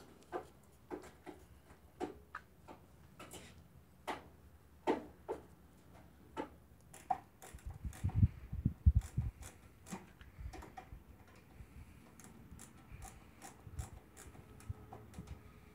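Irregular light knocks and clicks of scrap metal being handled, with a cluster of heavier low thumps about eight to nine seconds in.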